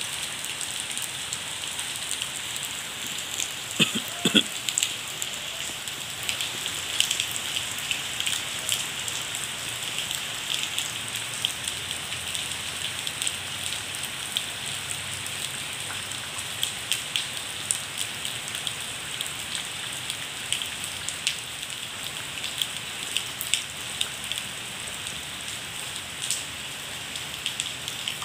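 Heavy rain falling steadily onto standing floodwater and wet ground: an even hiss dotted with many close drop ticks. A few sharper knocks stand out about four seconds in.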